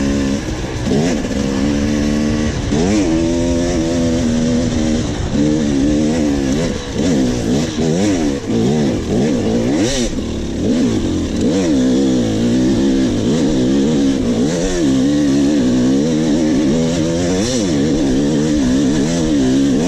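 Dirt bike engine heard onboard, its pitch rising and falling over and over as the rider opens and closes the throttle through the trail.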